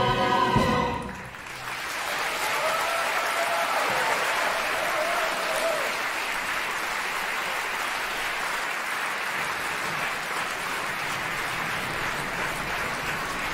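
An orchestra and singers end on a held chord about a second in, then a theatre audience applauds steadily.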